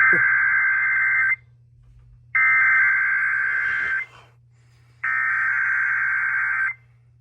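NOAA Weather Radio SAME data header of a Required Weekly Test: three harsh, buzzy bursts of digital data tones, each about a second and a half long, with about a second between them. This is the coded header that tells weather radio receivers a weekly test is starting.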